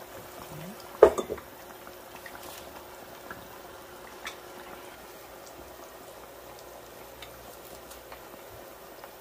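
Potato-starch-battered pork back ribs deep-frying in oil at 160–170 °C: a steady bubbling sizzle, with a sharp click about a second in and a few faint crackles after it.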